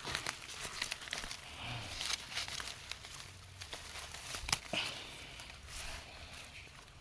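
Rustling and crackling of leafy plants being pulled and gathered by hand, with scattered sharp snaps, the loudest about four and a half seconds in.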